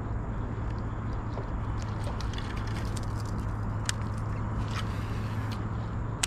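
Baitcasting reel being handled during a retrieve: irregular sharp clicks and short rasps start about two seconds in, the sharpest click just before the end, over a steady low hum.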